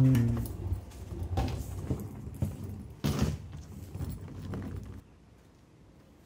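Wheeled hard-shell suitcase rolling over paving slabs, its wheels knocking and clattering unevenly, with footsteps. The sound stops about five seconds in, leaving near silence.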